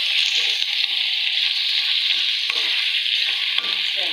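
Beef karahi masala sizzling steadily in a karahi wok while a wooden spoon stirs through it, with one sharp tap about two and a half seconds in.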